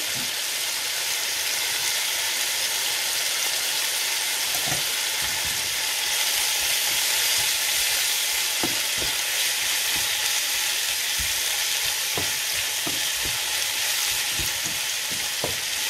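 Diced bacon, onion and carrot sizzling steadily in a frying pan, with the scrape and knock of a spatula stirring them from about four or five seconds in.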